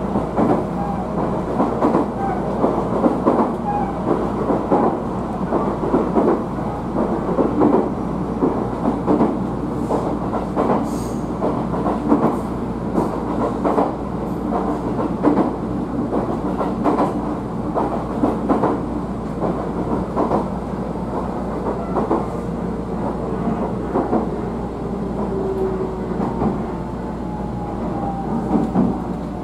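Inside an electric local train running over jointed track: a steady rumble with wheels clicking over the rail joints, and near the end a faint whine falling in pitch as the train slows for the next station.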